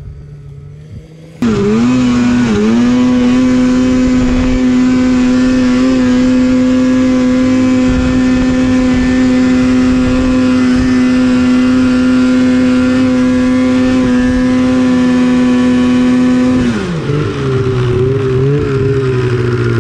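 Snowmobile two-stroke engine held at high revs under load, climbing a slope. It comes in sharply about a second and a half in, holds one high steady pitch for about fifteen seconds, then drops and wavers at lower revs near the end as the throttle is eased.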